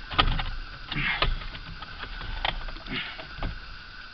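A few sharp clicks and knocks of hands and tools working at a steering wheel's plastic horn pad, trying to work it loose.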